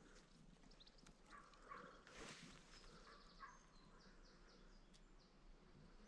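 Near silence with faint, distant songbird chirps, including a short run of quick high notes midway. The barn owl flying low overhead makes no sound.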